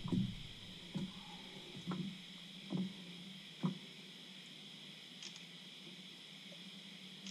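Soft knocks and handling noises in a small boat, about one a second for the first four seconds, then only a steady faint hum.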